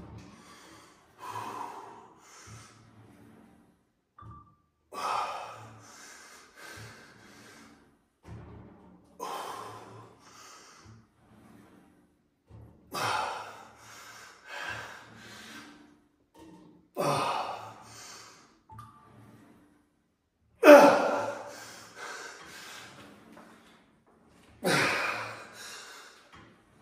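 A man's forceful, strained breaths and gasps, one with each rep of a chest fly on a pec deck machine, about every four seconds. They get louder through the set, and the loudest comes about two-thirds of the way through.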